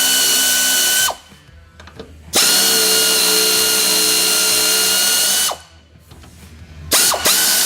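Power tool with a 13mm socket spinning the top strut mount bolts loose, a steady high whine in separate runs. One run winds down about a second in, a second runs for about three seconds, and a third starts near the end, each rising in pitch as it spins up and falling as it stops.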